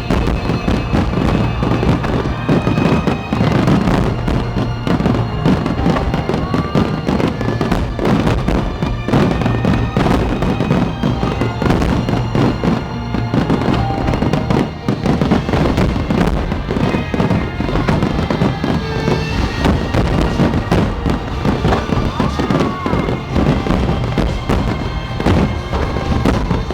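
Fireworks finale: a dense, unbroken barrage of shell bursts and crackle, with music playing underneath.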